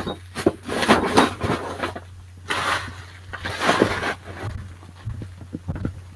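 Several short rustling and handling noises, as of items and plastic being moved about on a table, over a low steady hum.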